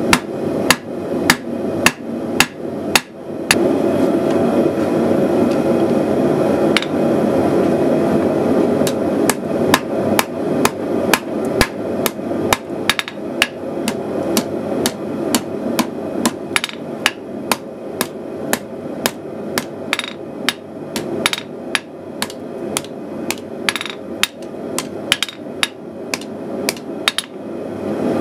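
Hand hammer striking red-hot steel on an anvil: rapid sharp blows, mostly two to three a second. A steady rushing noise runs underneath and is loudest a few seconds in.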